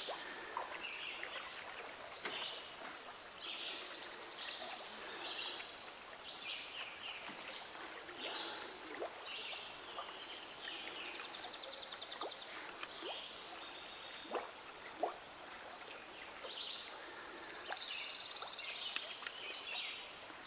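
Many wild birds singing at once, a dense chorus that includes a high, fast trill heard three times, over a faint rush of river water. A single sharp click stands out about fifteen seconds in.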